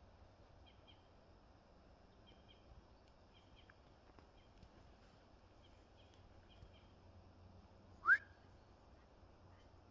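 Faint woodland background with a small bird chirping in short, repeated double notes; about eight seconds in, one short, louder whistle that rises in pitch.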